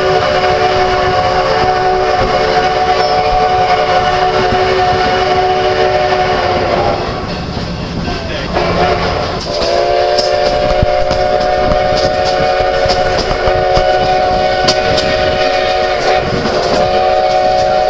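Steam locomotive whistle blowing two long blasts, several notes sounding together, with a short break of about two seconds between them.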